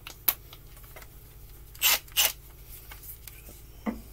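Metal tool handling at a cordless drill and its bits: a sharp click, then two short rasping bursts close together about two seconds in, and another click near the end.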